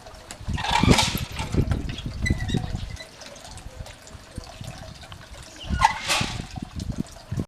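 Water splashing and pouring at the gatakon water device, with clattering knocks as it works. The sound swells about a second in and again near six seconds.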